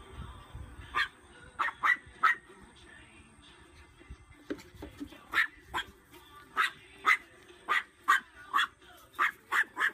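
Small dog yapping: a string of short, sharp barks, about sixteen in irregular runs, starting about a second in.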